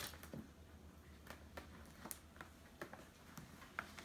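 Faint, scattered clicks and taps of plastic toy packaging being handled as it is worked open, over a low steady hum.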